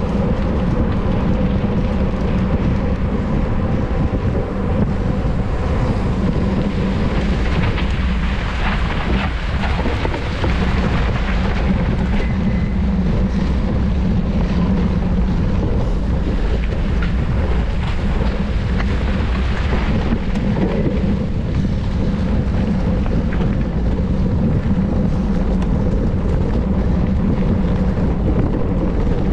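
Loud, steady wind rumble buffeting the microphone of a camera carried on a mountain bike ridden at race speed.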